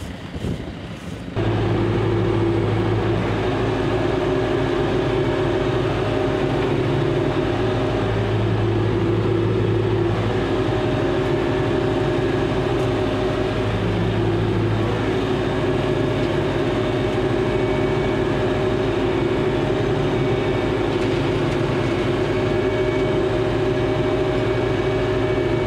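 John Deere 5085M tractor's four-cylinder diesel engine running steadily. It cuts in abruptly about a second and a half in and holds an even, unchanging note throughout.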